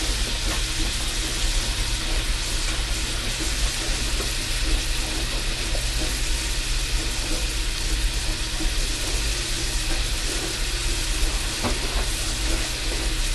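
Chopped onion, celery and carrot sizzling steadily in oil and butter in a stainless steel stockpot: the mirepoix sautéing at the start of a chowder, over a low steady hum.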